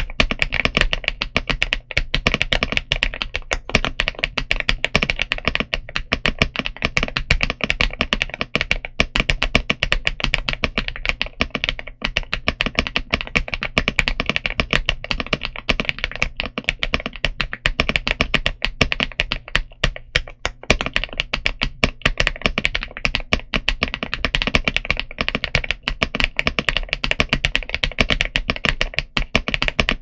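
Continuous fast typing on an iLovBee B87 tenkeyless mechanical keyboard in stock form, with Aster linear switches and PBT Cherry-profile keycaps: a dense, unbroken stream of keystrokes.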